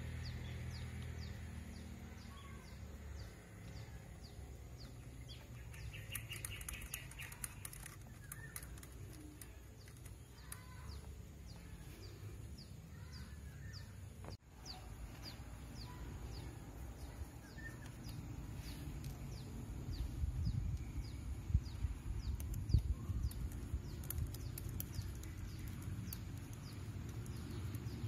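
Small birds chirping in a steady repeated series, about three short falling chirps a second, over a low rumble that grows louder about two-thirds of the way through.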